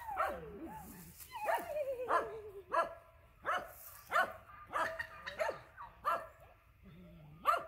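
A dog whining, one long falling whine, then a run of short high-pitched barks about one every two-thirds of a second.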